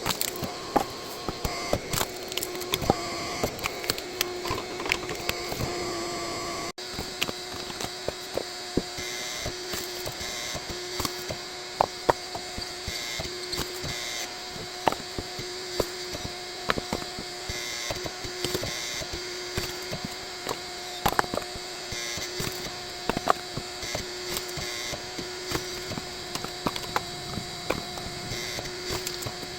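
Hydraulic log splitter running with a steady hum while the wood splits under the ram, giving frequent sharp cracks and splintering.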